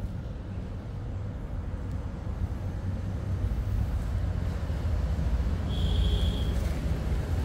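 Steady low background rumble that grows slightly louder, with a brief high-pitched tone about six seconds in.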